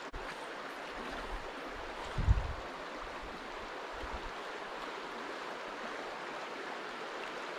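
Shallow stream running over a rocky bed: a steady hiss of flowing water, with one brief low thump about two seconds in.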